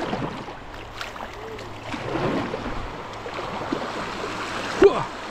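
Fast river water rushing around a kayak, with paddle strokes dipping and splashing through it. A single sharp, loud hit near the end stands out above the water.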